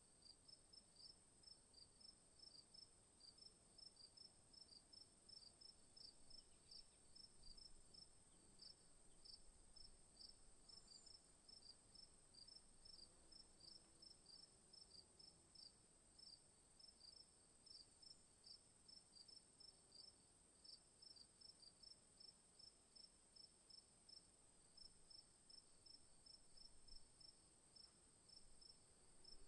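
Crickets chirping: short high chirps repeating evenly, about two to three a second, over a steady high-pitched whine.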